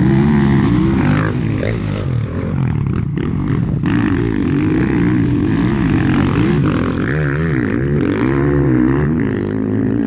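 Motocross dirt bike engines revving hard, their pitch rising and falling over and over as the bikes ride along the dirt track.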